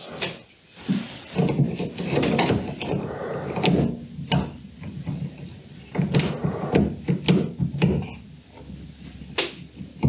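Metal spring hose clamps being fitted with pliers onto a washing machine's drain-pump hose: rustling and clattering of hands and tool against hoses and plastic, with several sharp clicks.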